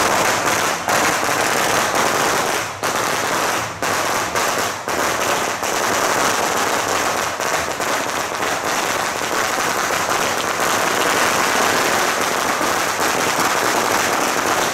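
A long string of firecrackers going off, a dense, rapid, unbroken crackle of small bangs with a few brief dips.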